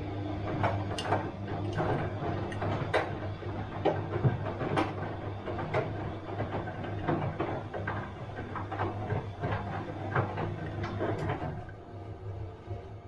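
Bosch washing machine running through its wash cycle: a steady motor hum under irregular clicks and knocks as the drum turns the load. The knocking thins out near the end.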